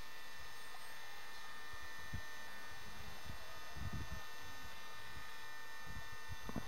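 Steady electrical buzz and hum from the camcorder itself, with wind gusting on the microphone now and then.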